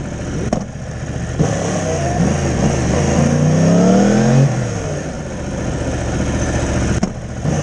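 Race motorcycle engine pulling in first gear at low speed, its revs rising from about two seconds in and dropping off sharply after about four and a half seconds, with wind rushing past the onboard microphone.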